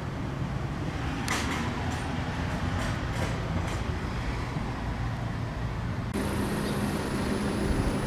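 Steady low mechanical rumble with a few faint clicks in the first seconds; about six seconds in it changes abruptly to the running hum of an LG LTUW602SP air conditioner outdoor unit, its condenser fan spinning, with a steady high whine over it.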